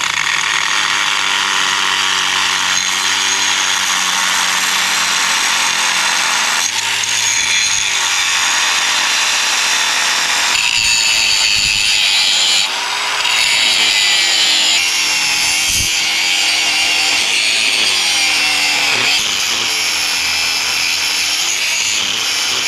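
Power grinder grinding steel weld down under mounting bolts, running continuously and loudly, its motor pitch sagging and rising as it bears into the metal, with a brief let-up about halfway through.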